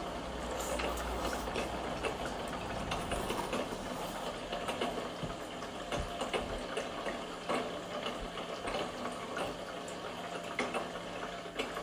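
Toy nagashi-somen spiral slide running: its small pump motor hums steadily while water flows down the plastic chute, with occasional light clicks of chopsticks and bowls.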